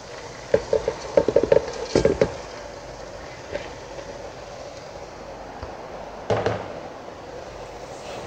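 Boiled rice tipped from a plastic bowl into a pan of frying vegetables: a quick run of knocks of the bowl and spatula against the pan in the first two seconds and one more knock about six seconds in, over a steady hiss.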